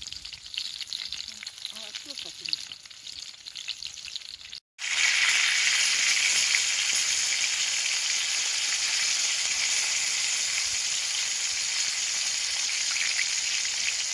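Food frying and sizzling in a pan. There is a cut about four and a half seconds in, after which the sizzle is louder and steadier.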